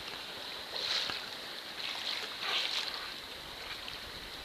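Sea water lapping and splashing around a pedal kayak, with a few short rushing splashes about a second in and again around the middle as dolphins surface close by.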